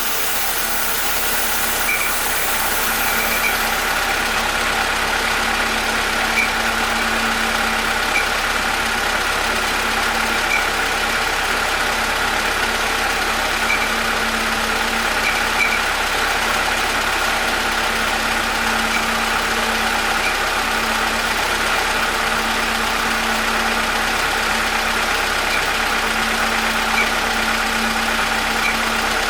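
Homemade air compressor running steadily: a constant hum with a higher whine over it, and faint ticks now and then.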